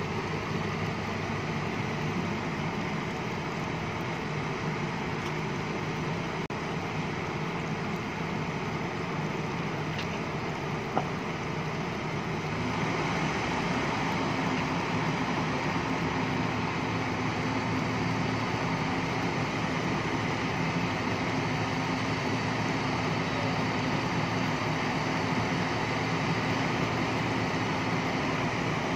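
JCB crawler excavator's diesel engine running steadily as its hydraulics move the boom and bucket. About twelve seconds in the sound steps up and grows louder, with a steady hum on top. A single sharp click comes about eleven seconds in.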